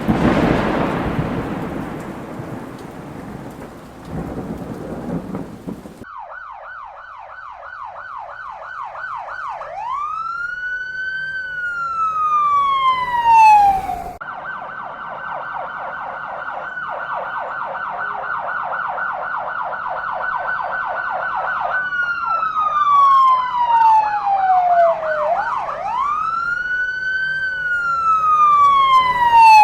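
A rumble of thunder fades out, then an emergency-vehicle siren starts. The siren alternates between a fast yelp, about three pitch sweeps a second, and a slow rising-and-falling wail. It cuts off sharply about halfway through, then plays the same yelp-and-wail pattern again.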